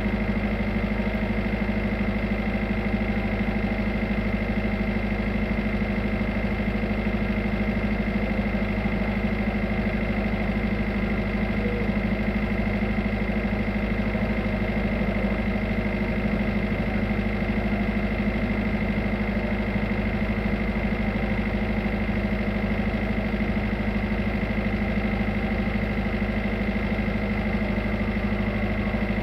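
Tugboat diesel engine running steadily: an even, unchanging drone with a constant high whine over it.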